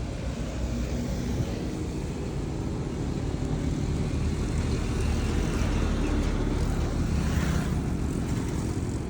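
Heavy diesel engine running with a low, steady rumble that grows gradually louder.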